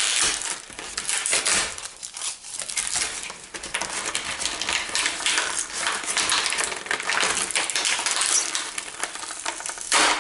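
Tight plastic toy packaging crinkling and crackling as hands tear and pull it open, with a run of small clicks and rustles.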